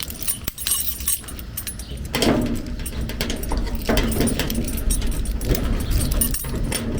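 Metal clinking and jangling of an ABUS padlock being handled and fitted through a shed-door hasp, in many small irregular clicks.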